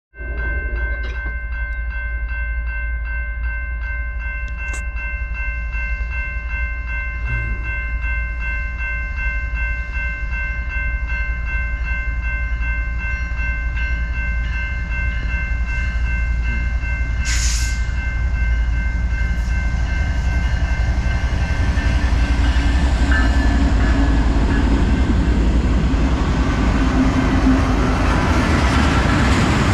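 BNSF freight train approaching, its diesel locomotives rumbling. Over the first two-thirds a steady, pulsing high chord of tones sounds and then fades out, with a brief hiss about seventeen seconds in. In the last several seconds the rumble and rail noise swell as the three locomotives pass close by.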